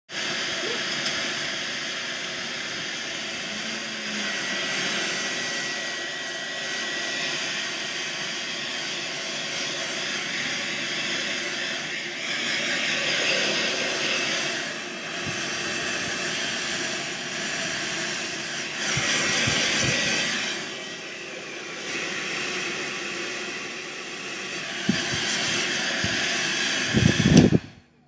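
Hair dryer running with a steady blowing hiss and motor whine, swelling louder a few times. A few knocks come near the end, then it cuts off suddenly.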